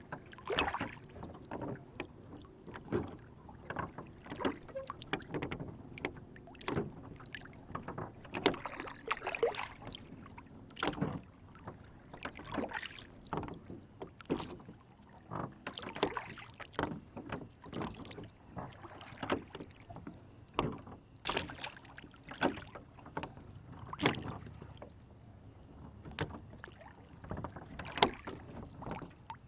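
Lake water lapping and slapping against a small rowboat's hull, in irregular little splashes several times a second.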